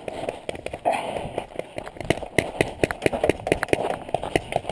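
Footsteps of a person running on gravel, heard from a body-worn camera: a steady beat of about three steps a second.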